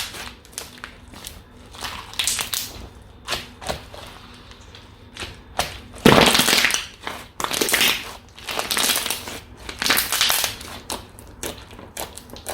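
Slime being pressed and kneaded by hand, giving irregular squishy, crackling strokes, the loudest about six seconds in.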